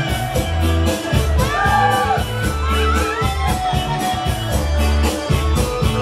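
Live Cambodian dance-band music: a steady drum beat under a melody line that bends and slides in pitch.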